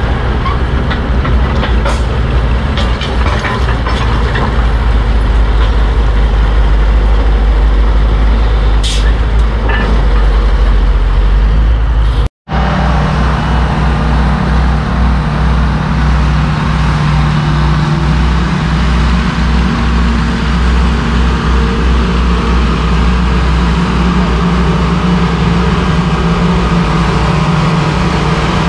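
Vintage Bucyrus-Erie cable shovel running as it digs, its engine going steadily with a few sharp metal clanks from the bucket and rigging. After an abrupt cut about twelve seconds in, the heavy engines of old earthmovers, a self-propelled scraper and a large wheeled machine, run steadily.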